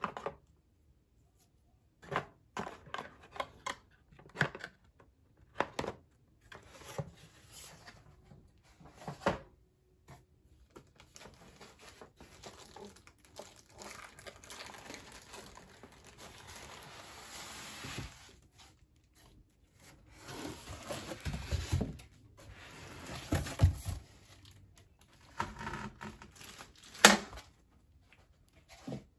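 Cardboard box and packaging being handled: scattered knocks and scrapes of cardboard flaps, a longer stretch of rustling and sliding in the middle, heavier thumps later on and a sharp knock near the end, with plastic wrap crinkling as the power station is lifted out.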